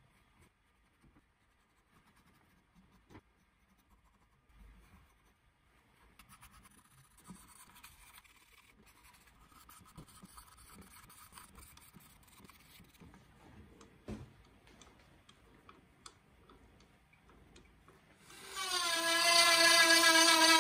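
Pencil lead faintly scratching and rubbing across an apple-burl goblet stem, with a few soft knocks. Near the end a Dremel rotary tool starts with a loud, high whine whose pitch wavers slightly as its small bit is put against the wood.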